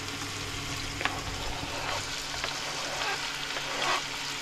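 Fresh tuna frying in a pan with a steady sizzle, with a few light clicks and scrapes of a knife on a plastic cutting board, one about a second in and more near the end as diced tomatoes are pushed into the pan.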